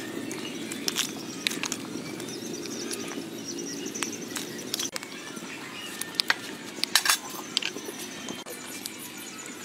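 A pot of soup boiling steadily as vegetables go in and a metal ladle stirs, with a few sharp clinks of the ladle against the pot, the loudest about two-thirds through.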